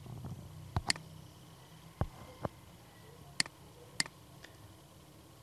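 Computer mouse clicking: several sharp, separate clicks spread over the first four and a half seconds, with two duller knocks about two seconds in.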